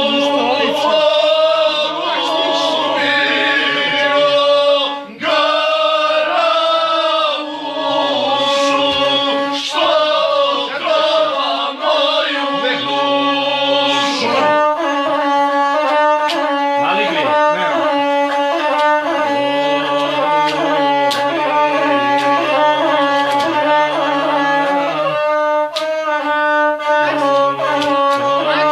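A gusle, the Balkan single-string bowed lute with a skin soundboard, bowed in a continuous, ornamented melody. A man's voice sings along with it.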